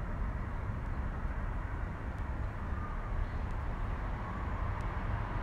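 Steady outdoor background noise with a low rumble from distant road traffic, with a few faint ticks.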